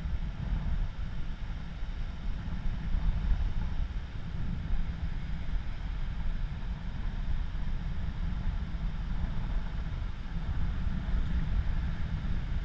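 Wind buffeting the microphone as a steady, uneven low rumble, with an even hiss above it.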